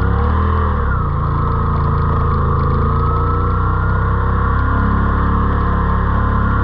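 ATV engine running steadily under way, its pitch dipping slightly about a second in and then creeping up a little.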